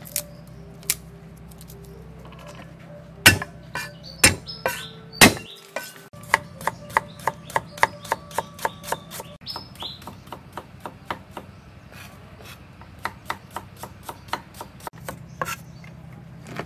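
Kitchen knife slicing ginger on a thick wooden chopping block: a few heavy knocks, then a steady run of knife strikes on the wood, about three a second.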